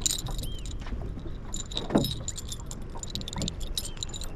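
Irregular light metallic clinking and ticking over a steady low rumble, with one heavier thump about two seconds in.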